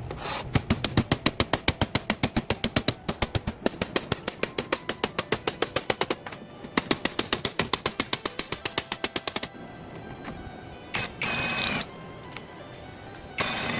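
Rapid, even knocking, about six strikes a second for several seconds with a brief break, then two short bursts of a whirring power tool near the end.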